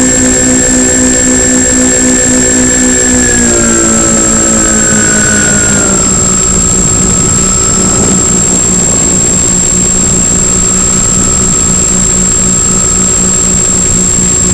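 Twin electric motors and propellers of a Multiplex Twinstar 2 RC plane running in flight over a steady rush of wind. The hum steps down in pitch twice, about three and a half and six seconds in, as the throttle is eased, then holds steady. A thin, steady high whine runs under it.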